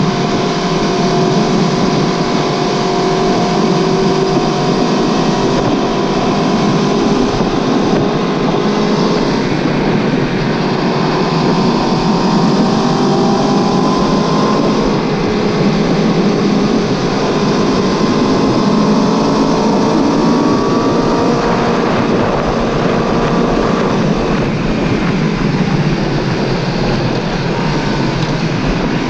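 Aprilia Tuono V4 1100 Factory's V4 engine with an Akrapovic exhaust, running under way at fairly steady revs, its pitch rising and falling gently, with wind noise.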